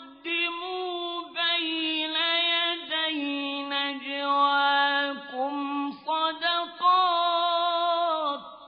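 A solo male reciter chanting the Quran unaccompanied in the melodic mujawwad tajweed style, with long held, ornamented notes that glide in pitch. The phrase ends with the voice trailing off near the end.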